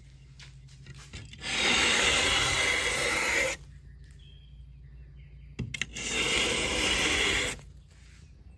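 Two long scraping strokes, each about two seconds, as old headliner material and glue residue are scrubbed off the inside of a roof top tent's hard shell.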